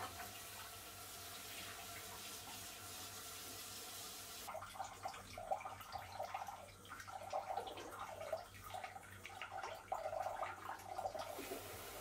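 Kitchen faucet running steadily as dishes are rinsed. About four seconds in, the even hiss of the stream gives way to an uneven sloshing as the water runs into a glass bowl held under it. The plain running hiss comes back near the end.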